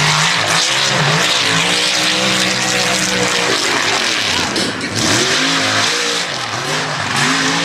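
Mud race truck's engine revving hard, its pitch climbing and dropping again and again as the throttle is worked through the ruts, over a constant rushing hiss of spinning tires throwing mud.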